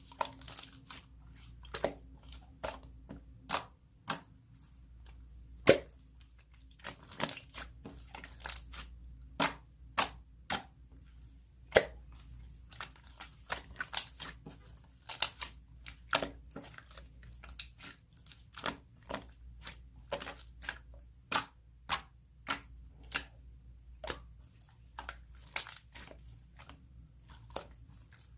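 Slime being worked by hand, making sharp, irregular popping clicks, roughly one or two a second, over a faint steady hum.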